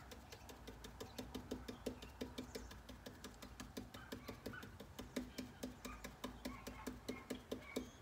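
Stiff-bristled stencil brush pounced up and down on a stencil: a steady run of faint, dry taps, several a second.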